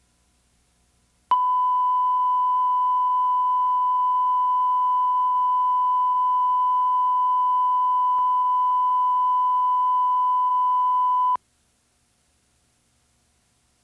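Broadcast line-up tone: a steady 1 kHz reference tone that accompanies SMPTE colour bars for setting audio levels. It starts abruptly about a second in, holds for about ten seconds, and cuts off sharply.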